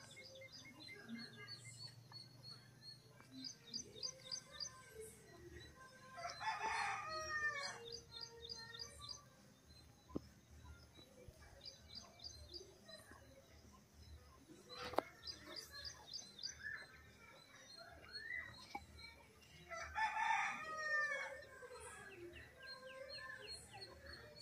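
A rooster crowing twice, each crow about a second and a half long and some fourteen seconds apart. Small birds chirp in quick high series throughout, with one sharp click about midway.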